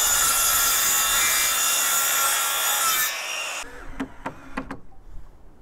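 Makita circular saw running steadily through a wooden board for about three seconds; the cut then stops and a few light knocks and clicks follow.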